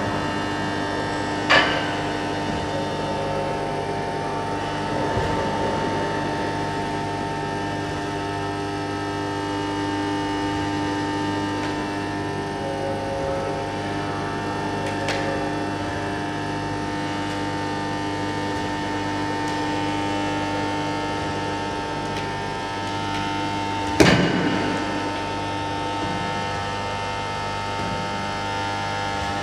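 A steady hum of several held tones, with a sharp knock about a second and a half in and a louder knock with an echoing tail near the end.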